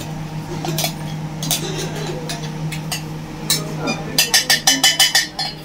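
Spoon clinking and scraping against a metal container while powder is spooned in, ending about four seconds in with a quick run of about ten sharp taps, over a steady low hum.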